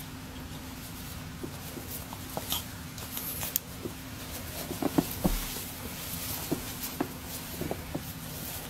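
Scarlet macaw playing with a person's hand on carpet: scattered soft clicks and rustles of beak and feathers against fingers, the sharpest click about five seconds in. A steady low hum runs underneath.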